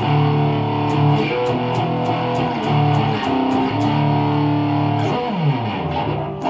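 Electric guitar played with high-gain distortion through an amp-simulator plug-in: held and restarted distorted low chords, with a slide down the neck about five seconds in.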